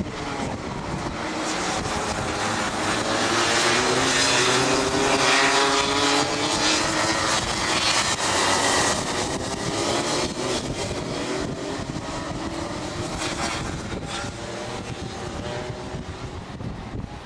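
A pack of Rotax 125cc two-stroke racing kart engines revving together as the karts pass close by, several engine notes overlapping and wavering. The sound swells to its loudest about halfway through, then fades as they move away.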